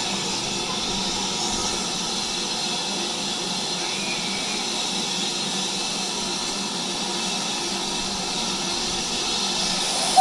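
Steam locomotive giving off a steady, even hiss of steam.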